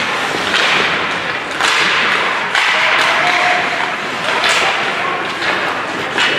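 Ice hockey play on the rink: sharp knocks of sticks and puck about once a second, each followed by a short scrape of skates on the ice.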